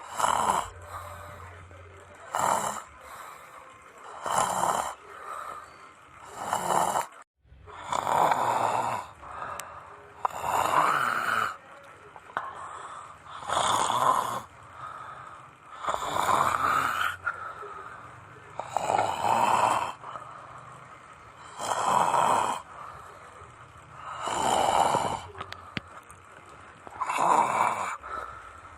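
A person snoring in deep sleep, with loud rasping snores repeating every two to three seconds.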